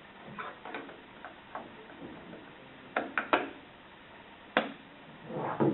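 Irregular plastic clicks and taps from the clock radio's case being handled, the loudest few coming close together about three seconds in and another single click a little over a second later.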